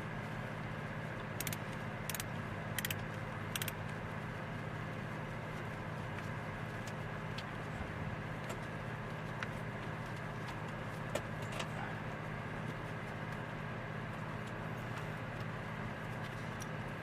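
Light metallic clicks and ticks of small carburetor parts, screws and tools being handled, four sharp clicks in the first few seconds and fainter ones after, over a steady low hum.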